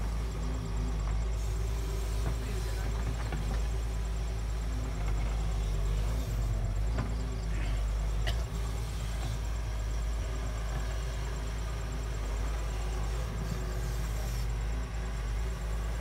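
Doosan DX140W wheeled excavator's diesel engine running steadily as the arm digs and lifts a bucket of soil.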